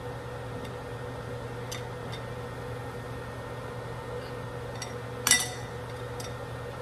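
A few light clinks of a glass bowl being handled, the loudest about five seconds in, over a steady low hum.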